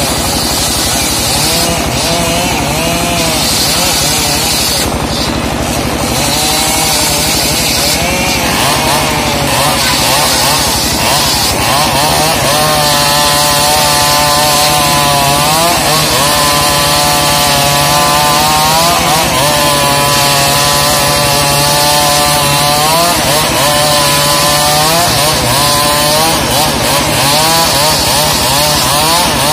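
Homemade circular sawmill ripping a slab of trembesi (rain tree) wood, the large blade running loud and steady. Through the middle of the cut a whine rises out of the noise and sags in pitch every few seconds as the blade bites into the wood.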